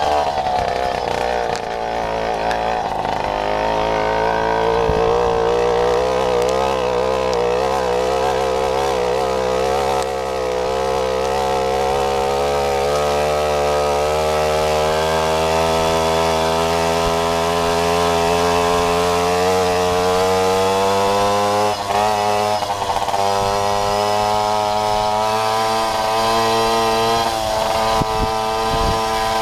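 Babetta moped's single-cylinder 50 cc two-stroke engine running continuously, its pitch wavering and dipping a few seconds in, then climbing slowly for about ten seconds as it picks up revs. A few short knocks can be heard near the end.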